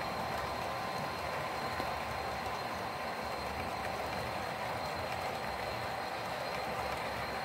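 HO scale model freight cars rolling past on the track: a steady, even rolling noise with a faint high whine.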